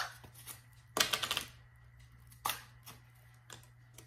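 Plastic spice jar of onion powder being handled and shaken: a quick rattle of rapid clicks about a second in, then a few separate clicks.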